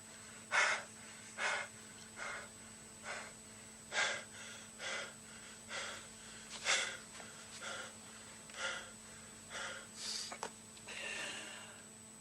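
A martial artist's heavy, hoarse breathing from exertion: short, sharp breaths about one a second, stopping shortly before the end.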